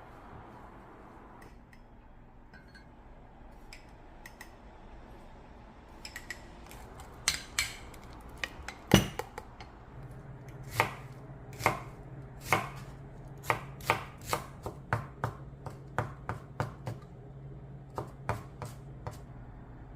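Knife chopping on a cutting board: a few scattered strikes with one loud knock, then steady chopping at about one to two strokes a second. A low steady hum starts about halfway through.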